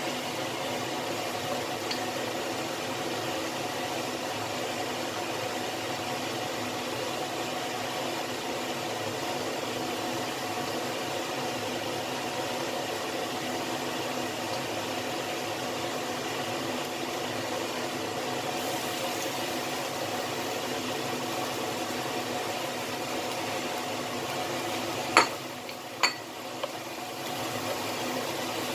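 Sauce simmering in a wok: a steady bubbling hiss under a constant low hum. Near the end come two sharp knocks about a second apart, like a wooden spatula striking the wok.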